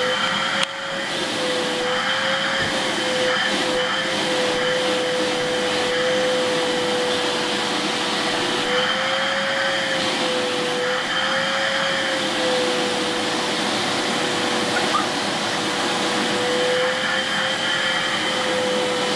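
Vacuum cleaner running steadily while its hose nozzle is drawn over a dog's coat, a constant rushing drone with a whine that wavers slightly in pitch a few times.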